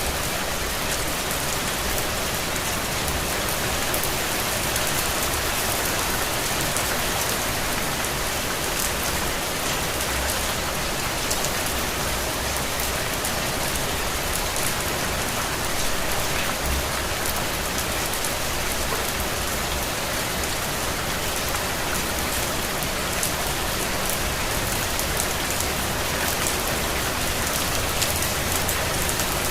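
Steady, heavy rain falling on a surface, a dense even hiss full of small crisp drop ticks over a faint low rumble.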